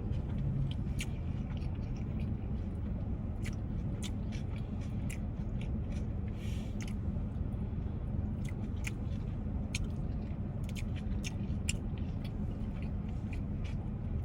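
Close-miked chewing of a saucy grinder sandwich: wet mouth clicks and smacks scattered throughout, over a steady low hum.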